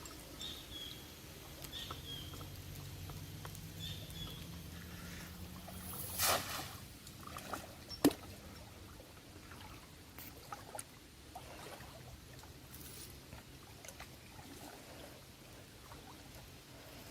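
Water splashing and trickling around a small boat on a river, with one louder splash about six seconds in and a sharp knock about two seconds later. Short high calls repeat during the first few seconds.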